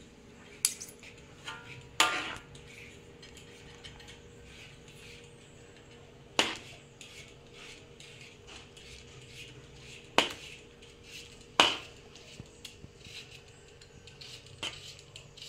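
Metal utensils clinking and scraping against a ceramic plate and a metal wok as noodles are served and gravy is ladled over them: a handful of sharp, separate clinks, the loudest about two, six, ten and eleven and a half seconds in, over a faint steady hum.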